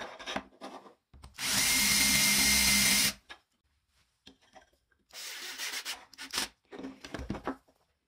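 Power drill driving a screw into plywood, running steadily for about two seconds so the screw head sits flush. Later come quieter knocks and rubbing as the wooden parts are handled.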